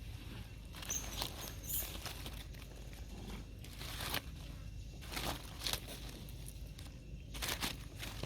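Irregular crinkling and crunching noises, a few sharp crackles a second apart over a low steady rumble.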